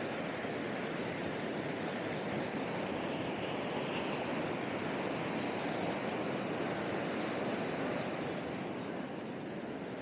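Ocean surf breaking and washing up the sand, a steady rushing sound.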